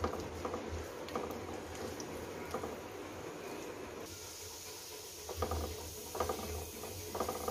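Chopped garlic sizzling in hot oil in a non-stick pan, stirred with a silicone spatula. From about five seconds in comes a run of quick stirring and scraping strokes against the pan, about two a second.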